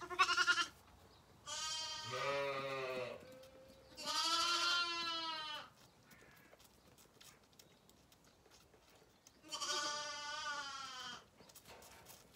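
Zwartbles lambs bleating: four bleats, a short one at the start and then three longer ones, the last after a pause of about four seconds.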